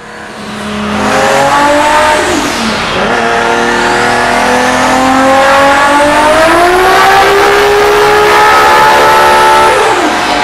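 Turbocharged Toyota Supra 2JZ inline-six pulled hard under load on a chassis dyno. The engine note climbs, drops at a gear change about two and a half seconds in, climbs again to hold near the top with a high whine over it, then falls away near the end.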